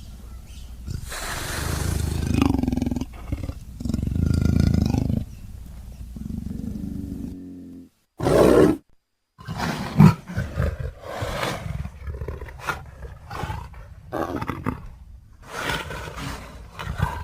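Leopard (black panther) growling and roaring in a string of separate calls. Several long calls come in the first half, then after a short break near the middle there is a run of shorter, quicker calls.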